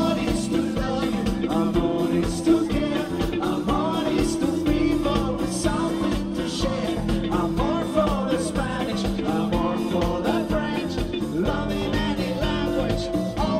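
Live band playing upbeat dance music, with singing and a steady drumbeat.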